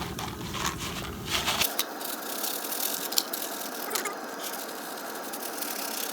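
Jiffy Pop foil pan shaken over a campfire, with the unpopped kernels rattling and scraping inside and scattered sharp clicks.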